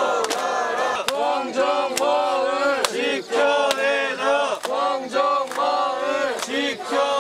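A crowd of protesters chanting together in Korean, many voices in unison, with a sharp beat about once a second.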